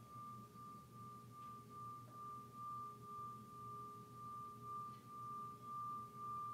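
Singing bowl kept ringing by circling its rim. It holds one steady tone with a fainter lower one, swelling and fading about one and a half times a second and slowly growing louder.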